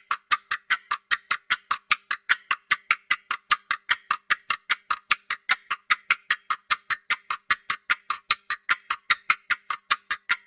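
Clock ticking fast and evenly, about five sharp ticks a second.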